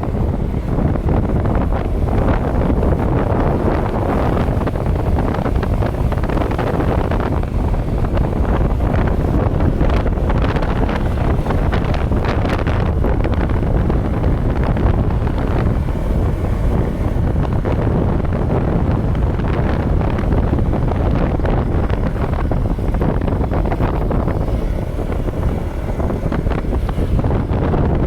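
Wind buffeting the microphone, a loud steady rumble with no letup.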